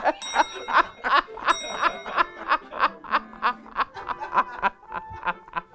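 Two men laughing hard, a quick run of ha-ha-ha pulses that gradually dies down. Two short ringing tones sound in the first two seconds.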